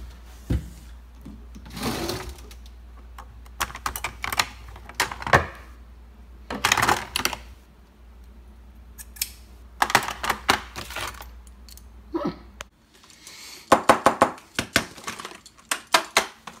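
Someone rummaging through a kitchen drawer for a tool: utensils and small hard objects clattering and rattling in irregular bursts. A low steady hum sits underneath and cuts off about three quarters of the way through.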